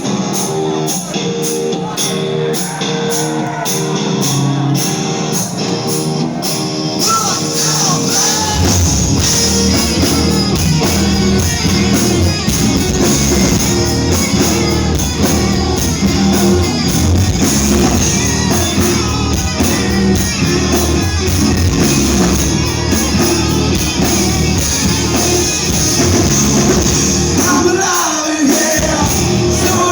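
Live rock band playing: a repeating guitar riff, with the bass and drums coming in about eight seconds in for the full band. A voice sings or shouts near the end.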